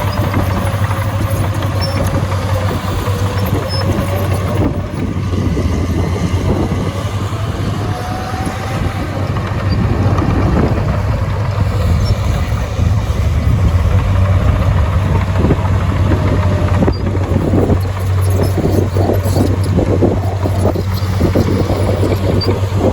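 Heavy diesel earthmoving machinery running steadily under load, with a deep engine hum and a wavering whine. Dense rapid clanking and rattling builds up in the last few seconds.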